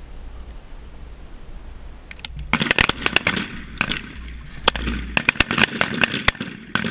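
A string of 12-gauge M1014 semi-automatic shotgun shots firing buckshot, fired by several shooters on a firing line. The shots come fast and irregularly, starting about two seconds in and running for nearly five seconds.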